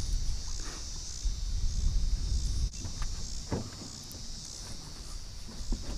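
Insects trilling steadily in a high, even drone, with a low rumble underneath that drops away about halfway through.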